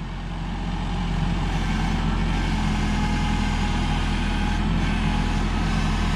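Kubota tractor's diesel engine running steadily, growing louder over about the first second and then holding level.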